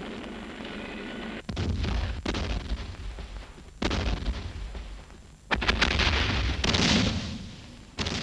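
A series of five loud blasts, about one to two seconds apart, each coming in suddenly and trailing off in a rumble: film battle effects of explosions or artillery.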